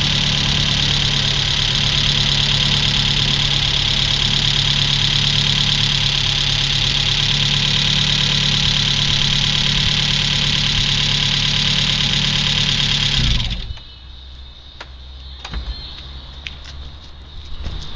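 Opel Astra GSi's C20XE 2.0 16-valve four-cylinder engine idling steadily during its first minutes after a rebuild. It cuts off suddenly about thirteen and a half seconds in, leaving a few faint clicks.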